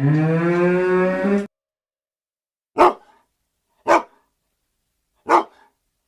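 A cow mooing: one long low call that rises in pitch and stops about a second and a half in. After a pause, a dog barks three times, single sharp barks about a second apart.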